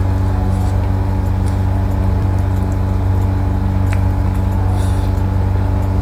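A steady low hum with evenly spaced overtones that does not change, with a few faint clicks of someone eating.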